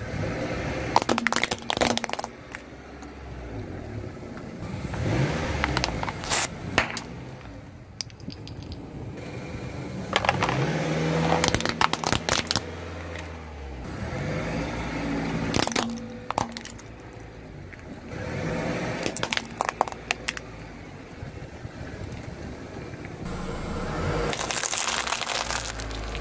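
A car's tyre rolls slowly over small plastic objects such as toy binoculars and a toy tank, cracking and crunching them under its weight. This happens about six times, every four to five seconds, each time with the low rumble of the moving car.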